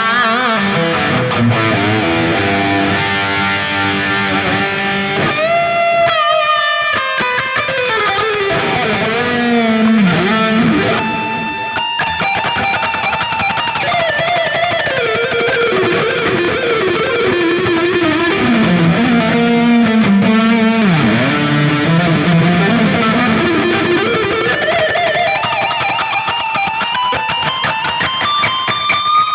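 Electric guitar played through a high-gain modeling unit, playing a lead melody with string bends and vibrato on held notes.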